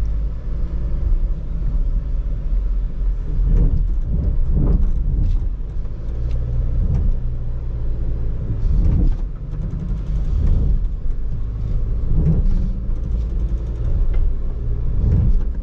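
2022 Jeep Grand Cherokee 4xe trying to climb a steep off-road slope in four-wheel high, heard as a steady low rumble broken by several bumps, with the tires struggling for grip. The climb fails, which the driver puts down to the tires rather than the four-wheel-drive system.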